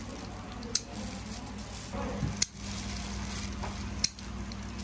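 Three sharp metallic clicks of kitchen utensils, spaced more than a second apart, over a steady kitchen background with a faint hum.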